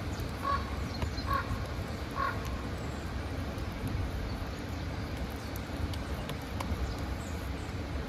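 A bird calling three times, about a second apart, over a steady low rumble.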